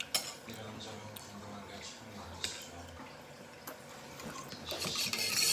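Close-up eating sounds: chewing and lip smacks, with a few sharp mouth clicks and a brief rustle near the end.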